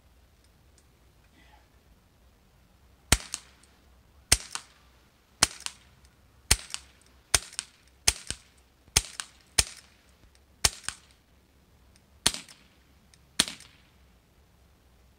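CO2-powered .177 pellet revolver (Crosman Vigilante) firing about a dozen single shots, roughly one a second, starting about three seconds in. Each shot is a sharp crack, and several are followed a moment later by a fainter click.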